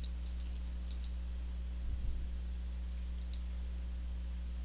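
Computer mouse clicks: a few pairs of light, sharp clicks as on-screen arrow buttons are pressed, over a steady low electrical hum.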